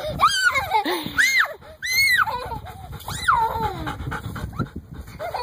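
Dog whining: a string of high calls, each rising and then falling in pitch, about four of them in the first three and a half seconds.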